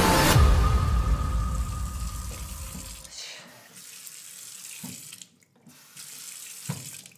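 Kitchen faucet running into a sink, with two light knocks near the end. A loud low boom just after the start dies away over the first three seconds.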